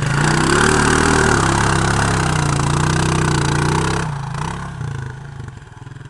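ATV engine revving hard under load as the quad ploughs through a muddy creek crossing, its pitch rising and falling, with a heavy rush of splashing water and mud. The noise drops off sharply about four seconds in, leaving the engine running more quietly.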